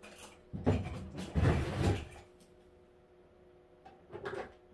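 Jars and bottles of toiletries being rummaged through and handled: two bursts of knocking and rattling in the first two seconds, then a few softer clicks just after four seconds.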